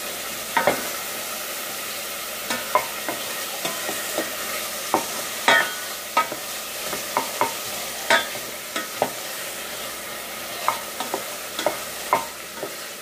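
A wooden spoon stirring food frying in a metal pot, over a steady sizzle. The spoon knocks irregularly against the pot's side about every half second to a second.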